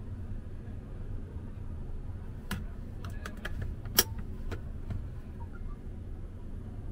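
A coach seat's fold-down footrest worked with the feet: a run of small clicks and knocks from about two and a half seconds in, with one sharp clack about four seconds in, over a steady low background hum.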